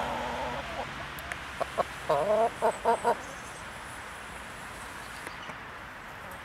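Brahma hens clucking: a drawn-out call at the start, then a quick run of six or seven short, loud clucks between about one and a half and three seconds in, over a steady background hiss.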